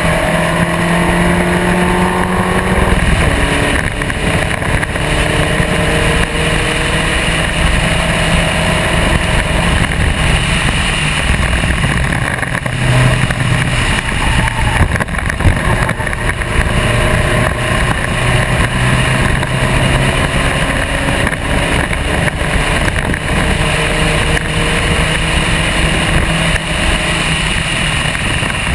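Spec Racer Ford's engine at racing speed, heard onboard: the pitch climbs as it accelerates and drops at each gear change, the first shift about three seconds in.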